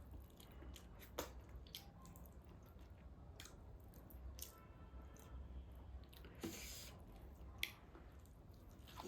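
Faint chewing of taro root with dried meat: soft, wet mouth sounds with scattered small clicks and smacks.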